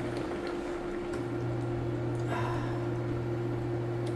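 A steady low hum with a higher steady tone over it, with a few faint soft wet smacks and clicks from picking at fish in a soup pot by hand and eating.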